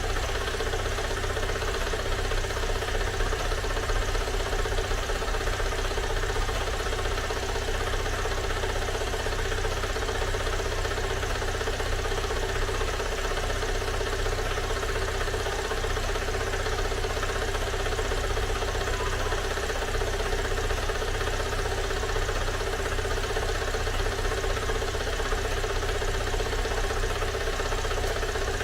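Great Wall WEY car engine idling steadily, its just-rebuilt engine running.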